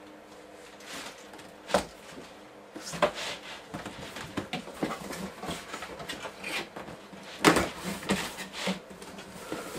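Large cardboard box being handled and opened by hand: a sharp knock about two seconds in, then an irregular run of cardboard scrapes, taps and rustles, loudest a little before the end.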